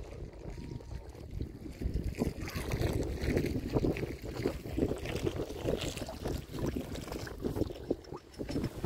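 Small waves lapping and slapping irregularly against the hull of an 18-foot Sailfish sailboat under way, busier after the first couple of seconds, with wind rumbling on the microphone.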